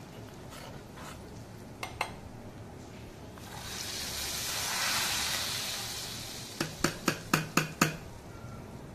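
Tadka of hot oil with curry leaves and Kashmiri chillies poured from a small tempering pan into a pot of dal, sizzling: the hiss swells about three and a half seconds in, peaks, and dies away over about three seconds. Then about six quick metal clinks as the pan and spoon knock against the pot.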